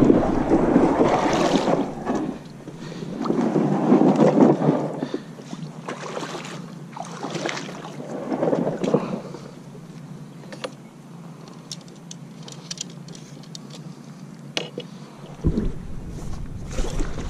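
Vibe Cubera 120 kayak hull scraping and sliding over the muddy, gravelly shore in three long pushes as it is launched. After that come a few light clicks and knocks of gear on the deck, and a thump near the end.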